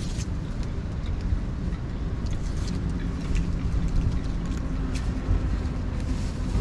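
Wind buffeting the microphone with a steady low rumble, over small scattered clicks of cats crunching dry kibble close by. A faint steady engine hum comes in about a third of the way through.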